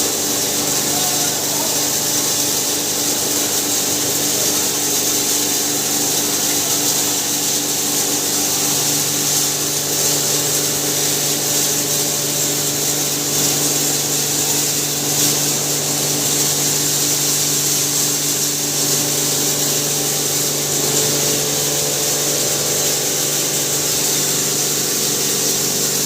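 Maize-grinding hammer mill running steadily: a constant motor hum under an even, loud rush of noise from the mill.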